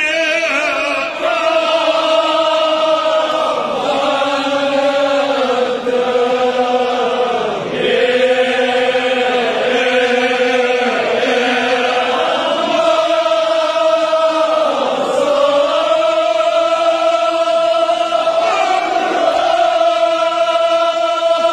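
A man's voice chanting an elegiac recitation through a microphone, in long held notes with the pitch swooping down between phrases every few seconds.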